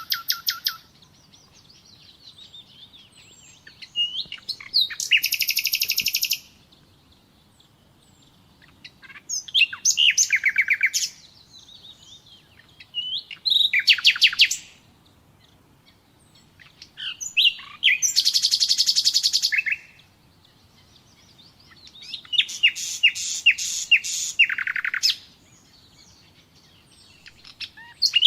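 Nightingale singing: phrases of fast repeated high notes and trills, each one to three seconds long, with short pauses between them.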